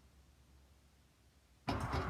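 Near silence for most of it, then about a second and a half in, a starter suddenly begins cranking the International TD9 crawler's cold gas-start diesel engine again, which is not firing.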